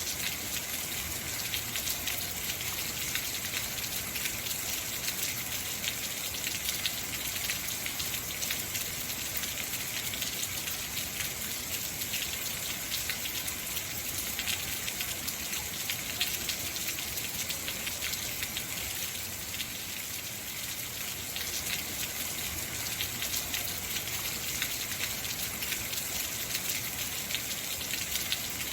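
Heavy rain falling steadily, a dense hiss of drops with many small patters on surfaces.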